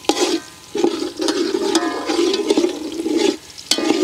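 Sliced onions frying in oil in an aluminium pot, stirred with a metal slotted spatula: swishing, sizzling scrapes through the oil, with a few sharp clicks of the spatula against the pot. The onions are just starting to brown.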